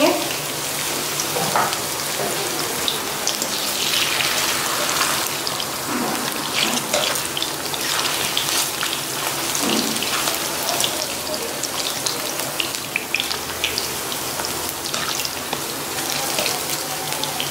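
Thin potato slices frying in hot oil: a steady sizzle with constant small crackles and pops.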